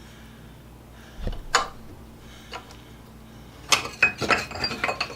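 Metal clinks and clanks from a hand-cranked drill press as its feed ratchet is released and the spindle is run back up out of the drilled hole: a knock and clink about a second in, then a quick cluster of several sharp clinks near the end.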